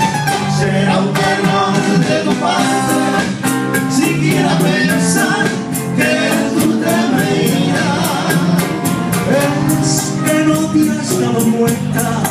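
Live Latin American guitar trio music: several acoustic guitars playing together over a steady percussion beat.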